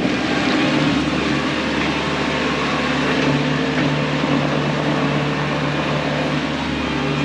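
Bobcat T630 track loader's diesel engine running steadily at an even speed.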